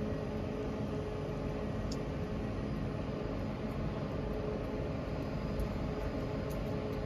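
Steady hum of a Northern multiple-unit train standing at the platform, with a faint constant tone over a low rumble.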